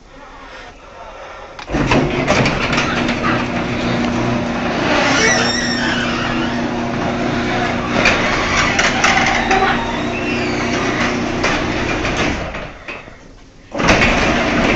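Garage door opener running: a steady motor hum that starts about two seconds in, runs for roughly ten seconds and then dies away. A louder sound begins abruptly just before the end.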